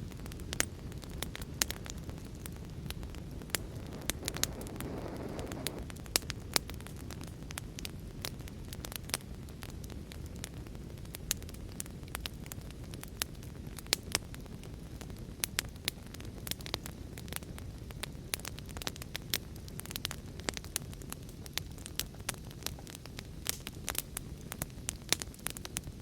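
Wood fire in a fireplace crackling, with frequent sharp pops and snaps over a steady low rush of rain. There is a brief low swell about five seconds in.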